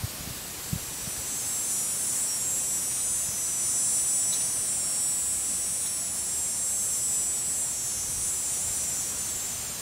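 A cicada's buzzing song, high-pitched and steady, swelling in about a second in and fading near the end.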